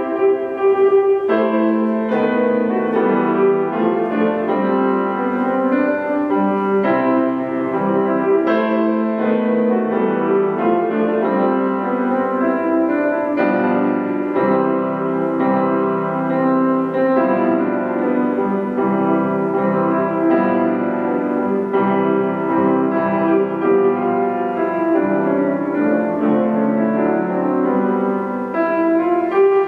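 Grand piano played solo, a continuous run of notes ringing into one another without a break.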